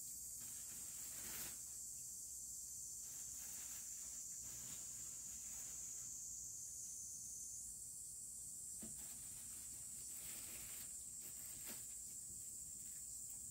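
A steady, high-pitched chorus of insects droning in the background, with a faint shift in pitch partway through, over quiet room tone. There are a few faint soft knocks.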